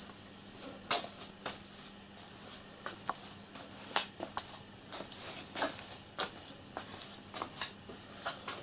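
Faint, irregular light clicks and knocks, a few a second, over a low steady hum.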